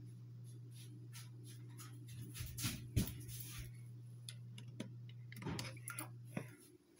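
Metal utensils clicking and knocking against a porcelain washbasin while poking at its drain, which is clogged with wet toilet paper; the loudest knocks come about three seconds in. A steady low hum runs underneath and cuts out near the end.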